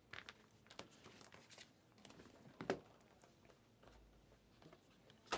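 Faint handling of trading cards and their packaging: light rustling with a few sharp clicks and taps, the loudest a little under three seconds in and another near the end.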